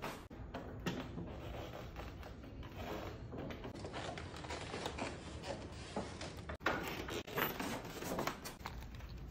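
Cast-iron hand printing press being worked by hand: an irregular run of clunks, knocks and scrapes as the lever is pulled and the bed and tympan are moved, with a cluster of sharper clicks in the last few seconds.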